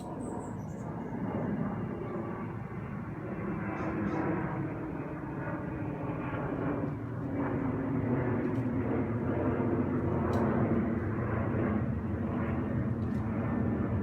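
An engine running steadily, a droning hum that slowly grows louder.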